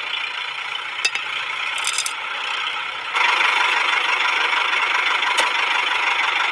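Small toy tractor's electric gear motor whirring, with a single click about a second in. About three seconds in it gets louder as the tractor drives off towing the model pump trailer, its plastic wheels rolling and rattling on concrete.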